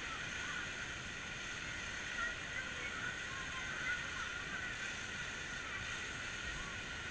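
Steady outdoor background wash of water-park ambience, with faint distant voices and shouts coming and going.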